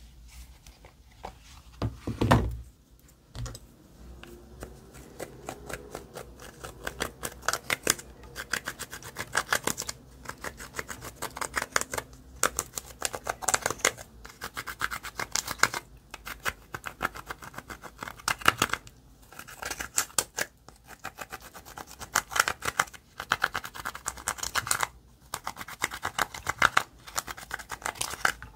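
Hands kneading and stretching slime, with rapid crackling and clicking as air pockets in it pop. This comes in repeated bursts with short pauses, and there is a heavier thump about two seconds in.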